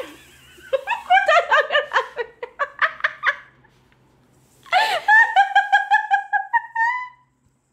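A woman laughing in two bouts: first a run of quick laughs, then, after a short pause, a high, evenly pulsed laugh that rises in pitch at its end.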